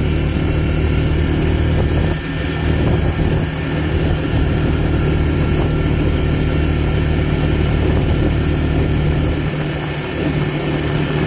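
ATV engine running steadily under throttle while riding, with tyres rolling over gravel. The engine note dips briefly about two seconds in and again near the end.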